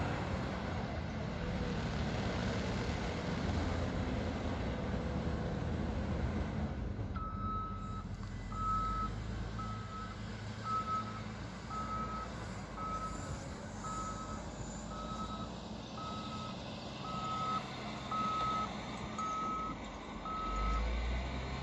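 Snow-clearing vehicle's engine running under load. From about seven seconds in, its reversing alarm beeps steadily about once a second as it backs up.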